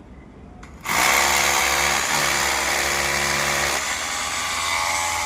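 A handheld electric power tool starts about a second in and runs steadily at full speed, with a whining motor tone that shifts slightly in pitch partway through.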